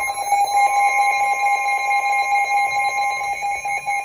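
Weather radio alert alarm sounding, a loud steady electronic tone with a fast flutter, signalling an incoming warning. A second, slightly higher tone drops out about three seconds in.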